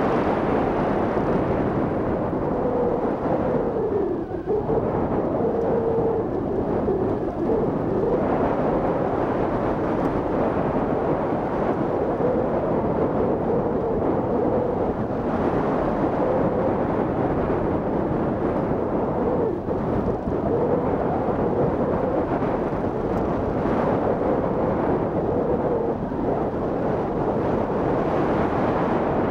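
Steady rush of wind over the microphone of a camera mounted on a hang glider in flight, with a faint wavering whistle coming and going over it.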